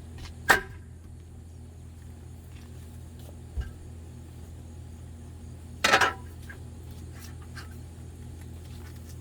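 Fresh sweet-corn ears being husked by hand: two short, sharp tearing snaps of green husk, one about half a second in and a longer one near six seconds, over a steady low hum.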